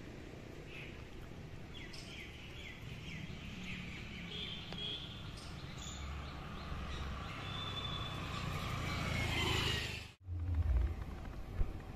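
Outdoor ambience: birds chirping over a low steady rumble that grows louder towards the end. The sound breaks off abruptly about ten seconds in and comes back as a louder low rumble.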